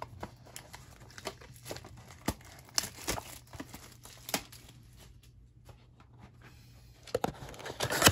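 A cardboard trading-card blaster box being handled and opened by hand: scattered crinkles and sharp clicks, quieter for a moment past the middle, then denser, louder tearing and crinkling near the end as the box flaps are pulled open.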